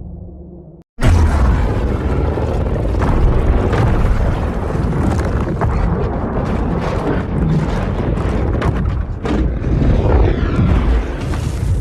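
Loud, rough, noisy creature sound effect with a heavy low rumble, starting suddenly about a second in after a brief silence and fading near the end.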